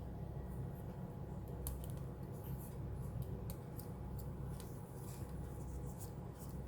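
Faint, scattered small clicks and ticks of tools and fingers handling the internals of an opened MacBook Pro, over a steady low hum.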